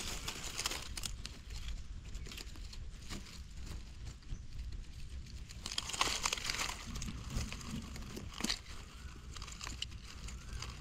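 Dry leaves and twigs crackling and rustling in irregular bursts, louder about six seconds in.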